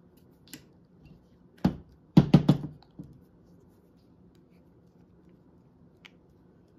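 A bottle of liquid glass being tapped: a few sharp taps, a quick run of four or five about two seconds in, one more just after, and a faint last tap near the end. The tapping moves the liquid glass down into the fine tip so that it does not clog.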